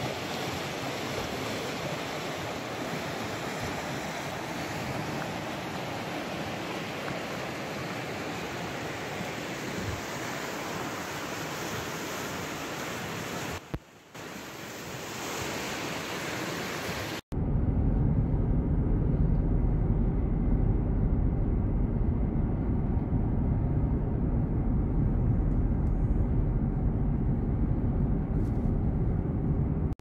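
Rushing river water, a steady hiss. About seventeen seconds in it cuts abruptly to the louder, steady low rumble of road noise inside a moving car.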